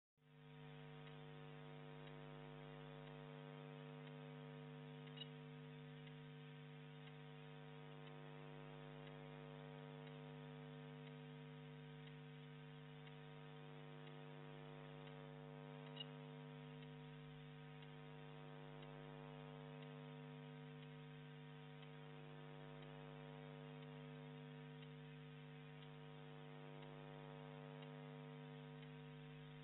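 Faint, steady electrical hum with a stack of overtones, with two tiny clicks, one about five seconds in and one about sixteen seconds in.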